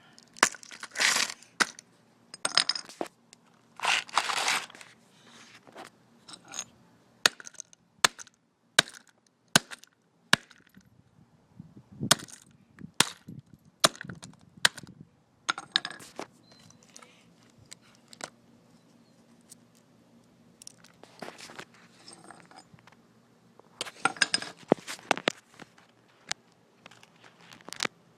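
A fire-damaged plastic pocket calculator being smashed and broken apart: repeated sharp cracks and knocks with short bursts of crunching, snapping plastic. The hits come in clusters, thickest near the start and again near the end, sparser in between.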